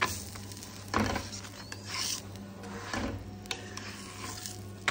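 Spatula scraping and pressing a paratha against a hot tawa: four rasping strokes about a second apart, then a few light clicks, over a steady low hum.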